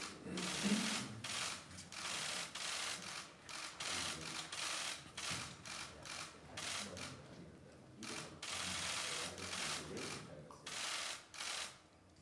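Still-camera shutters firing in rapid bursts, one run of clicks after another with short gaps between.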